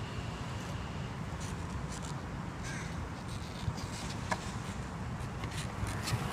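Skateboard rolling around a concrete bowl: a steady low rumble from the wheels on the concrete, with a couple of short sharp clicks near the middle and brief scrapes. Harsh bird calls sound a few times in the background.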